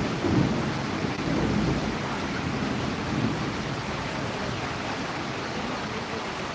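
Storm noise of wind and rain: a gusting low rumble, strongest in the first second or two, settling into a steady rushing hiss.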